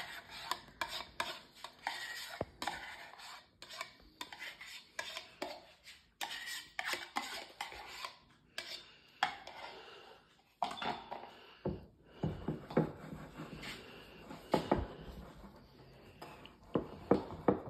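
A spoon scraping and knocking against the inside of a plastic tub as its thick contents are scooped out into a ceramic bowl. The clinks and scrapes are irregular, with a few louder knocks near the end.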